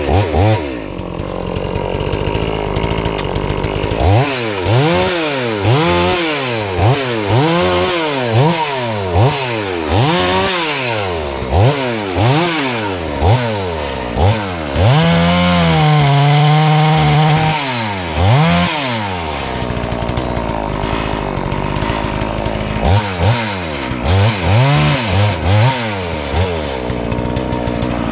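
FarmMac F380W 72cc two-stroke chainsaw with a 28-inch bar cutting wood. The engine revs up and down in quick bursts about once a second, holds high for a couple of seconds in the middle, and has steadier stretches near the start and toward the end.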